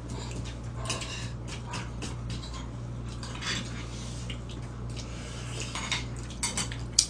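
Spoons and chopsticks clinking against stone bowls and side dishes, many short irregular clicks as several people eat, over a steady low hum.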